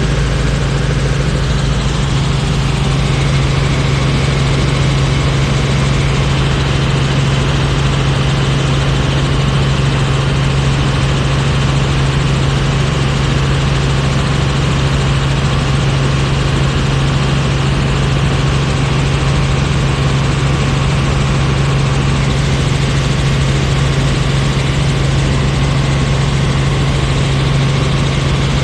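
Cabin noise of a Robinson R44 Raven helicopter in flight: its piston engine and rotors running with a steady low drone under a constant hiss, heard from inside the cockpit.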